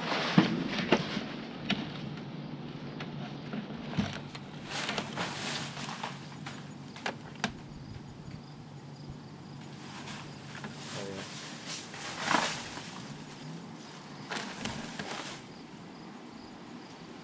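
Outdoor ambience at an open window: a steady low hum and insects buzzing and chirping. Scattered rustles and small knocks come from clothing and dry vines on the sill being moved.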